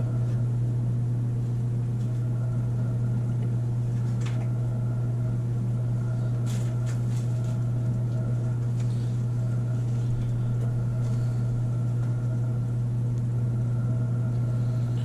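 A steady low mechanical hum, like an appliance motor or fan running, holding at one level throughout, with a few faint clicks and rustles of handling about four and seven seconds in.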